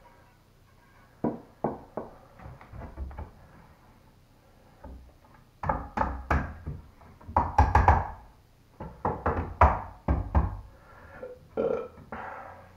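Irregular wooden knocks and clatter of a 1x board being handled and set upright against the edge of a wooden desk top, coming in clusters and loudest in the middle.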